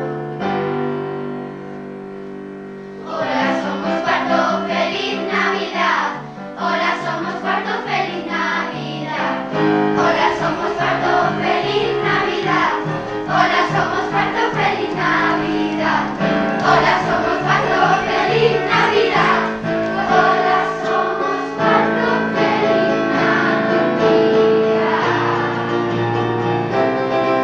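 Children's choir singing a Christmas song with instrumental accompaniment. Soft held chords give way to a fuller, rhythmic backing about three seconds in.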